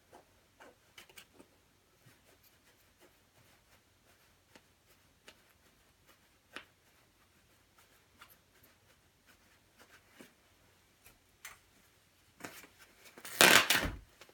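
Faint scattered snips and rustles as the fabric of a black down jacket is cut open, then near the end a loud tear of about a second and a half as the shell is ripped.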